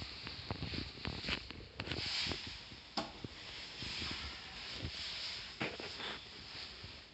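Handling noise from a handheld camera on the move: rubbing and rustle with scattered small clicks and knocks, and a sharper click about three seconds in.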